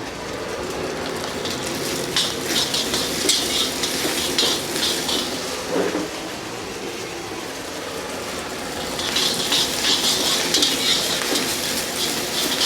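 Food sizzling in a hot wok while a metal ladle scrapes and clatters against it in quick strokes, in two busy spells: from about two seconds in to about five seconds, and again from about nine seconds on.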